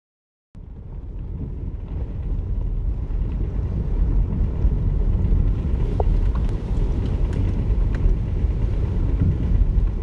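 Car driving on a dirt track, heard from inside the cabin: a steady low rumble of engine and tyres with a few light clicks. It fades in about half a second in and grows louder over the first few seconds.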